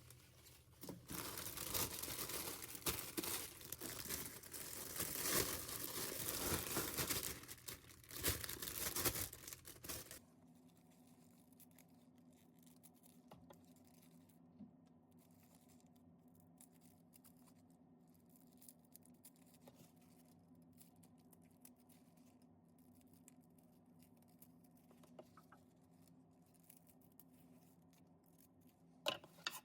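Crinkling and tearing sounds close to the microphone for about ten seconds, stopping suddenly, then a quiet steady hum with a few faint clicks.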